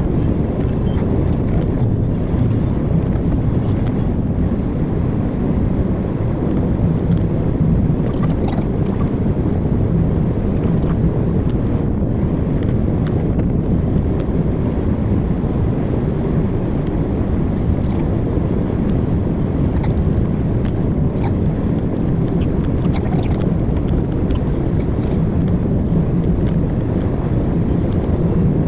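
Truck driving steadily along a highway: a constant low rumble of engine and road noise with a faint steady hum.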